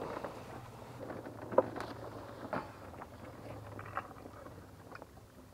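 Pop-top camper roof rising on its four gas struts, its canvas walls unfolding: scattered light clicks and knocks, the sharpest about a second and a half in, over a faint low hum.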